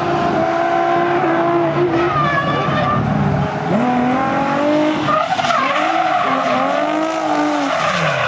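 Drifting car with tyres skidding and squealing. The engine holds steady revs for the first few seconds, then its revs dip and rise again several times on and off the throttle.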